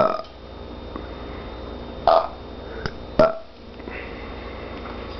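Burps traded between an orange-winged amazon parrot mimicking a burp and a person burping back. There are three short, loud burps: one at the start, a slightly longer one just after two seconds, and one just after three seconds.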